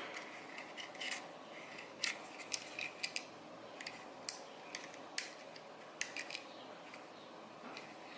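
Hands handling small hard plastic items, the UpLULA magazine loader and its packaging: a string of sharp, irregular clicks over light rustling, thickest from about two to six seconds in.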